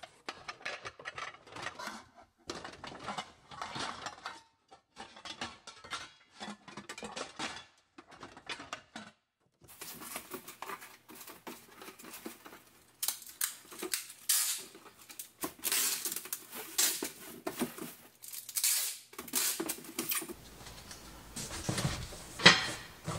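Metal cake pans and other bakeware clanking and clattering as they are packed into a cardboard box, with the box's cardboard being handled. The clatter comes in many short bursts and gets busier and louder from about halfway through.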